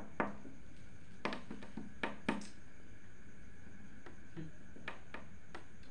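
Steady background hiss with about six short, sharp clicks or taps scattered through it.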